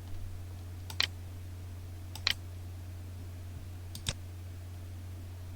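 Three short, sharp computer mouse clicks, about a second and a half apart, over a steady low hum.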